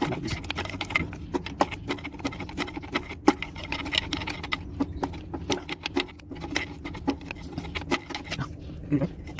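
Irregular metallic clicks and taps, several a second, from hand tools working the parking brake adjustment on a Cat 966H wheel loader, with one sharper knock about three seconds in.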